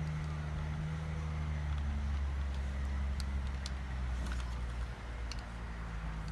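A steady low hum, with a few faint small clicks in the second half.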